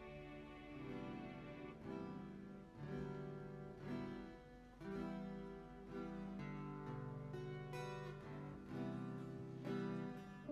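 Quiet instrumental worship-band music: acoustic guitar with sustained chords, the chord changing every second or two.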